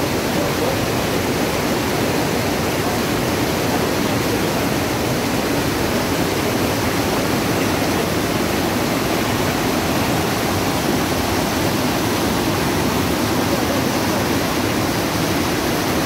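Steady rush and roar of a mountain waterfall, white water pouring and cascading over large boulders.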